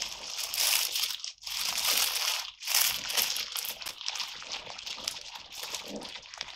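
Dry leaf litter, sphagnum moss and soil substrate crackling and crunching as hands mix them in a plastic bowl. It is a noisy, continuous rustle with two short breaks, about one and a half and two and a half seconds in.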